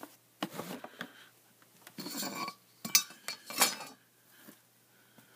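Small hard objects being picked up, moved and set down: clinking, rubbing and rattling in three short bursts, with two sharper knocks about three and three and a half seconds in.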